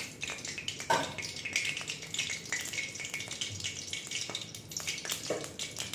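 Mustard oil heating in a kadai on a gas stove, crackling and spitting with small irregular pops, one louder pop about a second in.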